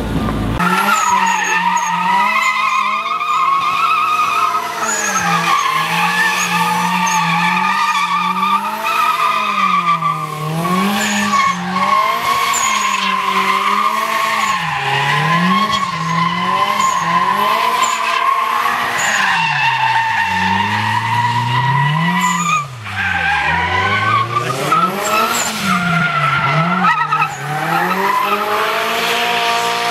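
Nissan 200SX drift car doing smoky burnout circles, its engine revving up and down in quick waves as the throttle is worked, over a steady tyre squeal. The revs drop sharply about 23 seconds in, then climb again.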